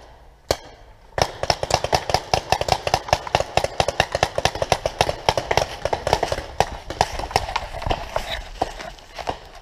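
Paintball markers firing: a single sharp pop, then from about a second in a fast, uneven stream of pops, several a second, thinning out near the end.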